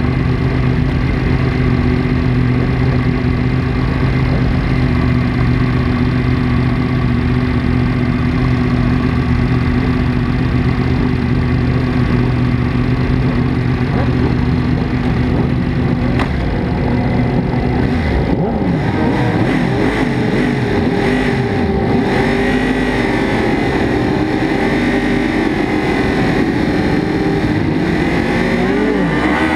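Yamaha YZF-R1 crossplane inline-four racing engine idling steadily on the starting grid, then from about halfway held at higher revs and blipped up and down among other race bikes revving around it. Near the end the revs climb sharply as the launch begins.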